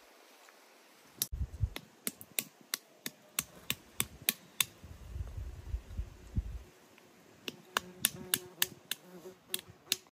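Knife chopping on a cutting board: a run of sharp, even strikes about three a second, pausing briefly about two-thirds of the way in.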